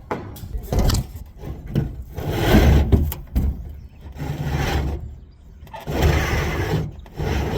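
Thin-gauge sheet-metal HVAC duct scraping and rasping as crimped pipe sections are pushed and worked together. It comes in four or five rough scraping spells, each about a second long.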